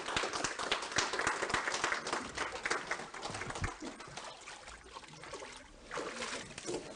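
A congregation applauding; the clapping thins out about halfway through. Water splashes and drips as the newly baptized person climbs out of the baptismal tank.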